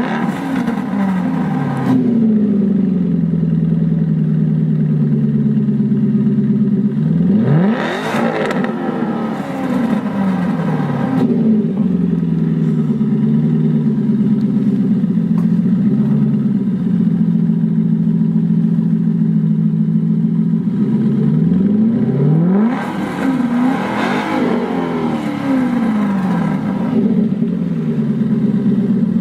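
Aston Martin V8 Vantage N430's warm 4.7-litre V8 idling and blipped in free revs. It falls back from a rev at the start, then revs sharply twice, about eight seconds and about twenty-three seconds in, each time dropping back to a steady idle over a few seconds.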